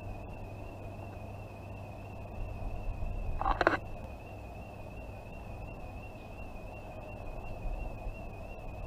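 A distant alarm sounder holding one high, quickly warbling tone throughout, over a low background rumble. A short, loud call-like sound cuts in about three and a half seconds in.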